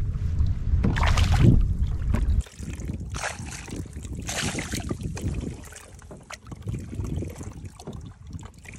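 Wind rumbling on the microphone over open water, cutting off suddenly about two and a half seconds in. After that, softer irregular water splashing and lapping around a hooked fish held at the surface beside a kayak.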